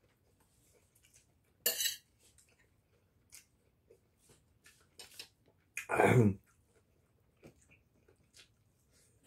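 A man eating a meal with his hands, chewing, with light clicks scattered through. Two louder short noises break in, one about two seconds in and a longer, deeper one about six seconds in.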